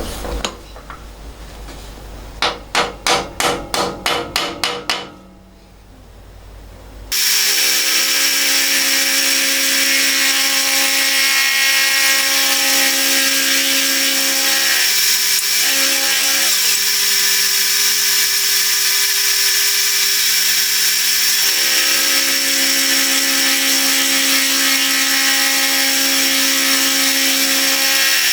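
A hammer taps quickly about eight times, seating a steel block down onto parallels in a milling vise. About seven seconds in, a milling machine starts suddenly and runs steadily as it machines the top face of the steel block.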